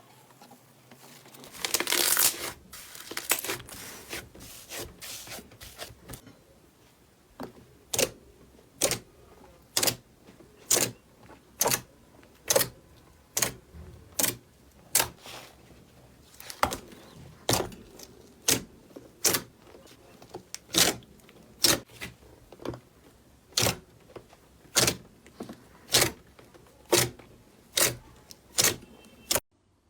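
Slime being handled: a crackly squishing rustle about two seconds in, then a regular run of sharp pops or clicks about once a second as the slime is pressed or poked.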